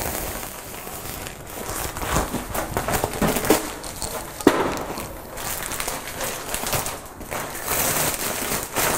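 Plastic sack crinkling and rustling as it is shaken out and handled, with scattered knocks and clatter; one sharp knock about halfway through.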